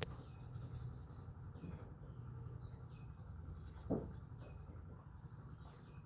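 Faint bird chirping: short falling chirps repeating about once a second over a low steady hum, with a single knock about four seconds in.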